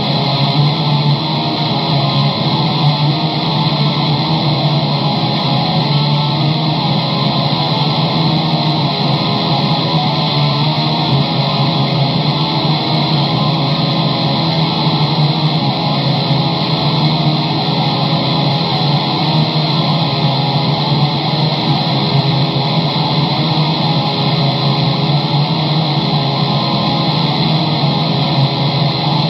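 Electric guitar track playing without a break, a dense, sustained sound with no pauses.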